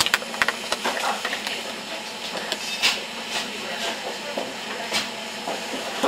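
Inside a tram standing at a stop: a steady hiss with scattered clicks and knocks, one louder about three seconds in.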